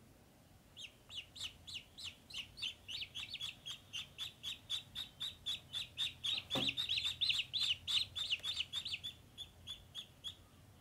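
Ducklings peeping: a fast run of short, high chirps, about four or five a second, starting about a second in and stopping shortly before the end.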